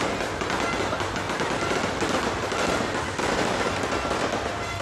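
Aerial fireworks going off in rapid succession: a dense, continuous crackling and popping with no break.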